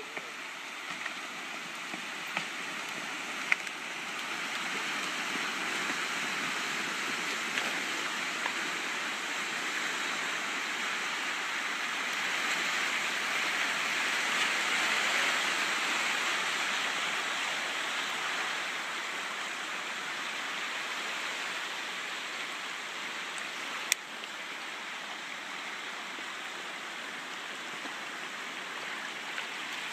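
Steady rushing, churning water, as swamp water is pulled into the Bayou Corne sinkhole. It swells to its loudest around the middle and then eases off, with a couple of sharp clicks along the way.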